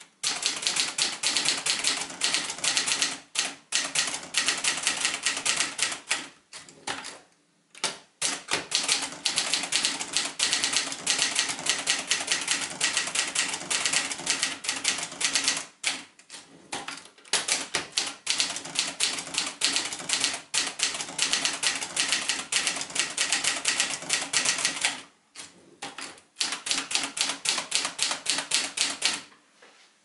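1972 Adler Tippa ultra-portable manual typewriter being typed on: a fast, dense run of keystrokes with the typebars clacking against the platen, broken by several brief pauses. The typing stops near the end.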